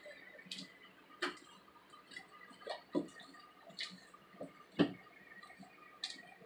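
Sticky glue slime being mixed by hand, giving off irregular soft clicks and pops, about seven in all.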